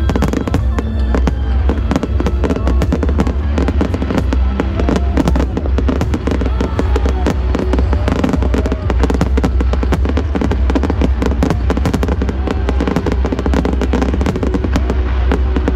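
Rapid, continuous fireworks bangs and crackles over loud music with a vocal, and a heavy low rumble.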